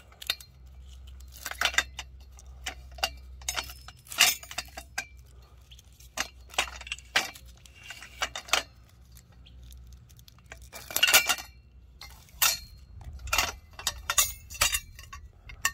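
Metal bell-tent poles clinking and clanking against each other as they are handled and pulled apart by hand: a string of separate knocks and rattles, the loudest cluster about eleven seconds in.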